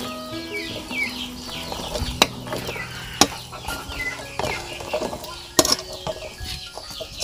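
Spoon stirring in a cooking pot and knocking against it, with a few sharp clinks, two close together about five and a half seconds in.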